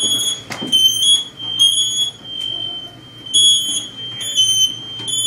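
Several interconnected hardwired smoke alarms beeping at once, their high-pitched beeps overlapping out of step. It is a false alarm with no fire, which the firefighters put down to one bad unit setting off the rest. A single knock sounds about half a second in.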